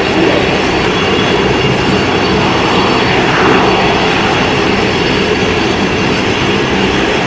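Steady, loud rumbling noise of an aircraft, with a faint sweep in pitch about three seconds in.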